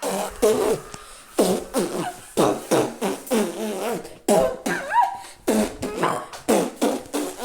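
A rapid string of fart sounds, about two a second, each starting suddenly and wavering in pitch like a sung note, as if farts are standing in for a tenor's singing.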